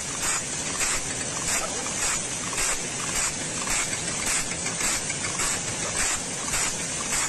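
Automatic band saw blade sharpening machine running, its grinding wheel rasping against the blade tooth by tooth as the feed arm steps the blade along, in an even rhythm of about two grinding strokes a second.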